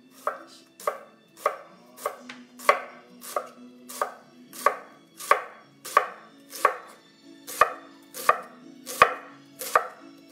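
Kitchen knife slicing cabbage into shreds on a wooden cutting board: a steady run of even strokes, about one and a half a second, each ending in a knock of the blade on the board.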